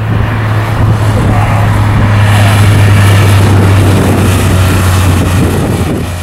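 Porsche 911 Carrera RS (993)'s air-cooled 3.8-litre flat-six driving past, its exhaust a steady low engine note. It swells to its loudest about three seconds in, then drops slightly in pitch and fades as the car moves away.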